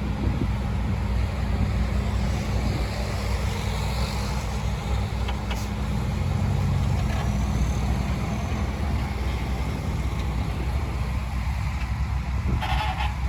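Heavy diesel engine of earthmoving equipment running steadily with a deep, even rumble. A short burst of higher-pitched noise comes near the end.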